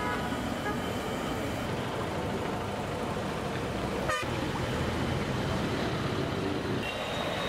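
Steady roadside traffic noise, with one brief vehicle horn toot about four seconds in.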